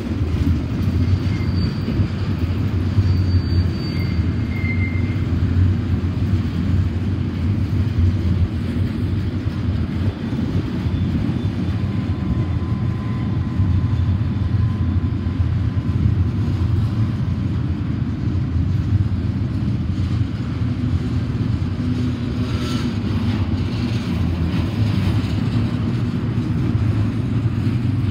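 Double-stack container well cars of a freight train rolling steadily past close by: a continuous low rumble of steel wheels on the rails.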